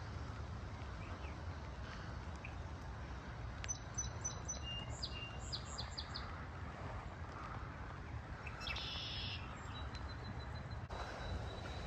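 Small songbirds chirping: a quick run of short, high calls about four seconds in and another cluster about nine seconds in, over a steady low rumble of background noise.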